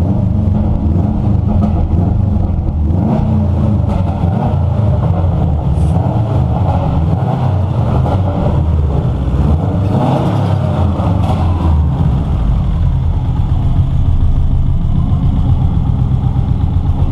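Freshly rebuilt Subaru GC8's turbocharged flat-four boxer engine running in the bay, blipped up in revs and back down twice, about three and ten seconds in.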